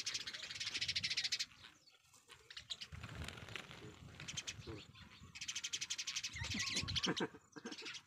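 Birds calling: a fast, rattling high-pitched chatter in two runs of about two seconds each, one at the start and one about five seconds in, with shorter calls between.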